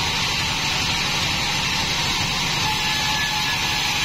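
Large sawmill bandsaw running steadily: a constant hiss with a low drone and a thin steady whine, with no change in pitch or level.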